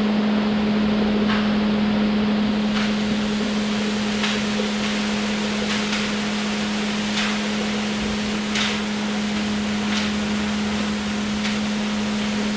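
Ready-mix concrete truck running with its drum turning as the concrete is poured: a steady engine hum over a wash of noise, with a faint regular knock about every one and a half seconds.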